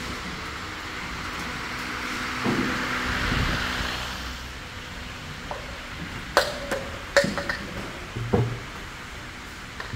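Factory-floor background noise with a steady hum and a hiss that swells and fades over the first few seconds, then a cluster of sharp metal clanks and knocks from work on a compressor unit.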